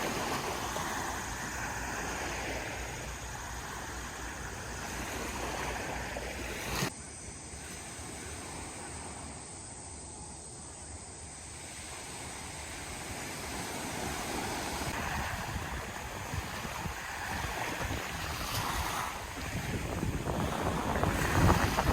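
Sea waves washing onto a beach, the surf swelling and fading in slow surges, with a sharp click about seven seconds in where the recording changes, and a louder wave breaking near the end.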